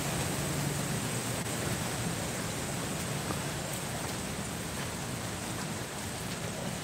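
Steady outdoor noise: an even hiss with no distinct events.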